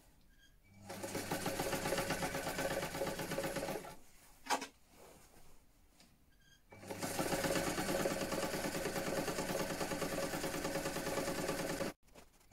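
Vintage electric sewing machine stitching a seam in two runs, a short one and then a longer one that stops suddenly near the end, with a single sharp click in the pause between them.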